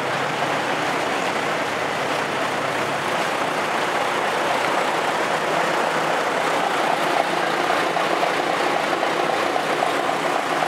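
Steady background noise of vehicle engines running among parked trucks, with no single event standing out.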